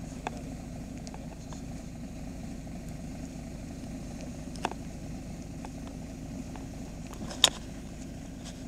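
Heavy truck engine running steadily at walking pace, with a few short sharp clicks, the loudest near the end.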